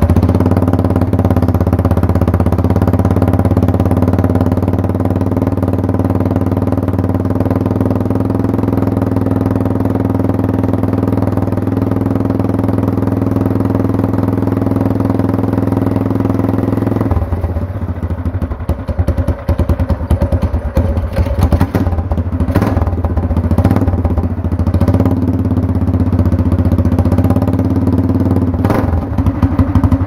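Tillotson 212cc single-cylinder four-stroke go-kart engine, cold, running through a long straight-pipe header. For about the first 17 seconds it holds a steady, fast idle on the choke. After that it runs rough and uneven, surging up and down, then steadies and gets louder near the end.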